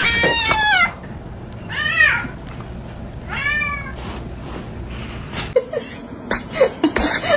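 A cat meowing three times. The first call falls in pitch; the next two rise and fall.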